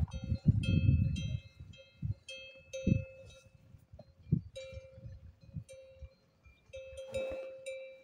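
Cowbells on grazing cattle clanking irregularly as the animals move about, each strike ringing with a metallic tone. A low rumble comes in about half a second in and fades after a second or so.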